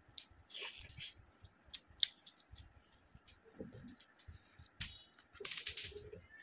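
Close-miked eating by hand: a mouthful of egg and rice being chewed, with wet mouth clicks and one sharp click about two seconds in. Near the end come a second or so of dense rustling as fingers mix rice and curry on the plate.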